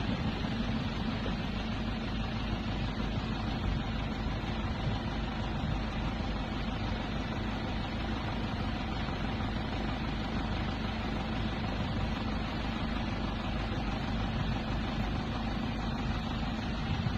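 A moving vehicle's engine running steadily, with a constant hum under an even rushing noise.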